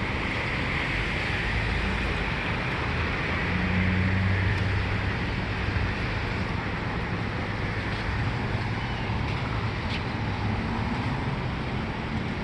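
A motor vehicle's engine and road noise running steadily, with a low hum that shifts slightly in pitch.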